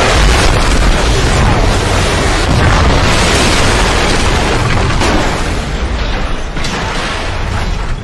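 Building exploding: a continuous heavy rumble of blasts with repeated sharp bangs, dying down over the last few seconds.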